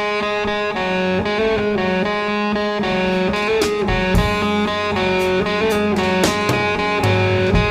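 Music: a guitar-led instrumental intro with changing chords and a light drum beat, no voice.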